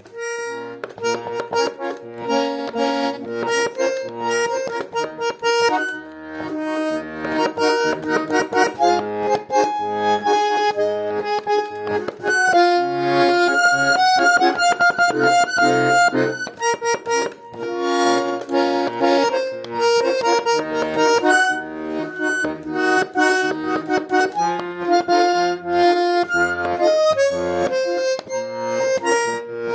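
Garmon (Russian button accordion) playing a lively pop-song melody in the right hand over a rhythmic bass-and-chord accompaniment in the left hand.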